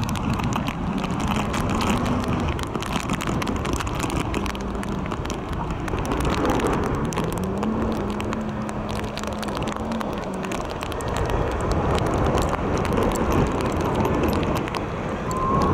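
Wind buffeting the microphone over the steady rush of surf, crackling on the mic. A faint low hum runs under it, rising in pitch about seven seconds in and then holding steady.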